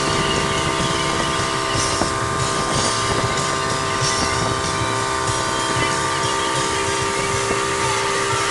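Boat's outboard motor running steadily at speed while towing a tube, a constant whine over the rush of water and wind.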